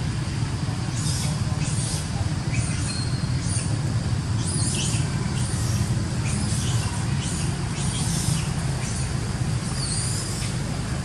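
Macaques squealing in a string of short, high-pitched squeaks, some with a falling end, during a rough scuffle over a baby monkey. A steady low rumble runs underneath.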